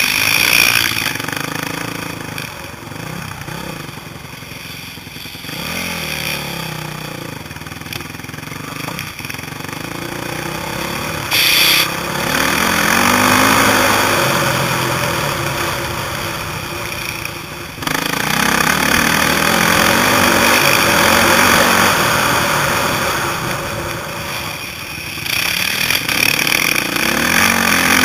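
Four-stroke 450 motocross bike engines revving up and down as they ride the track, the pitch rising and falling again and again. The sound changes abruptly twice.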